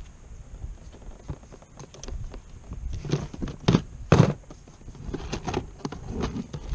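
Irregular knocks and thumps of a kayak and its gear being handled on a winch launch, with two louder thuds about halfway through.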